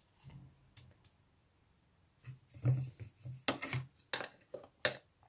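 Handling noises from slime-making: a few faint sounds early on, then from about two seconds in a run of irregular clicks, knocks and short rustling, hissy bursts as a stirring stick and a small plastic container are worked over the bowl.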